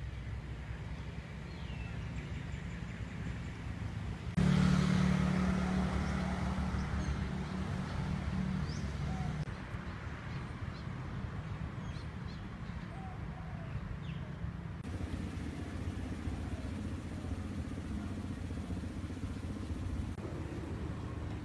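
Outdoor background noise: a steady low rumble of distant traffic with a few faint bird chirps. A louder rumble starts suddenly about four seconds in and slowly fades.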